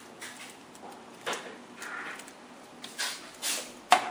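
Printer power cable being unwound and handled in gloved hands against a plastic printer case: soft rustling with a few light clicks and taps, the sharpest near the end.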